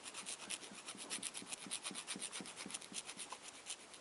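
A hand file scraping in quick, even back-and-forth strokes as the locating nubs on a model locomotive's pony-truck keeper plate are filed down. The sound is faint.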